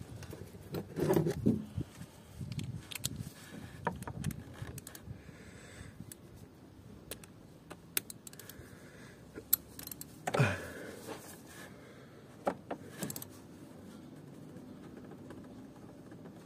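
Metal hand tools clicking, clinking and scraping in an engine bay as a ratchet is worked on a bolt of a diesel tandem pump, with scattered sharp clicks and a couple of louder clattery knocks about a second in and about ten seconds in.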